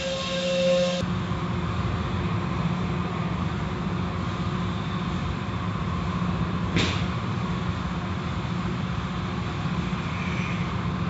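Automatic tunnel car wash running: a steady low machine hum under the hiss of water spray as the overhead soft-cloth curtain and brushes wash a vehicle. A whining tone stops about a second in, and there is one short sharp swish just past the middle.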